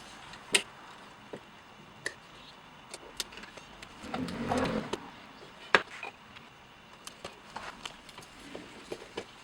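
Scattered sharp clicks and taps, with a short rustling scrape about four seconds in, from hand work on a garage door opener's wall control.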